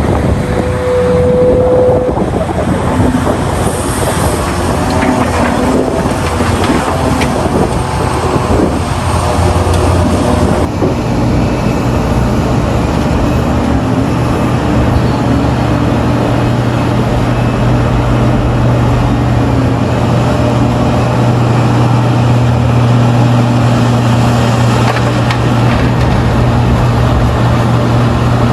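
Heavy diesel earthmoving machinery at work: excavator and dump truck engines running loud and steady, with irregular clatter and knocks in the first ten seconds, then a smooth, even engine drone.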